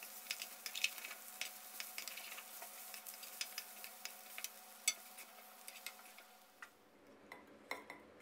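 Glass noodles, shrimp and water mimosa sizzling faintly in a metal wok while a metal spatula stirs and tosses them, with irregular scraping clicks of the spatula on the wok. The sizzle dies away about six and a half seconds in, followed by a few clinks as the food is scooped out.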